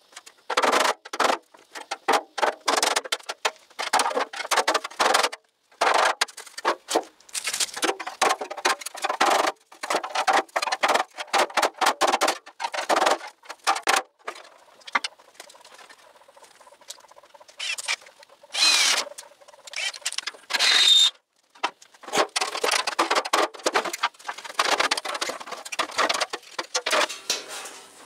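Hand tools working the edge of a sheet-steel 1932 Ford firewall as its outer band is taken off: irregular metallic scraping and tapping in quick runs, with two brief shrill scrapes about two-thirds of the way in.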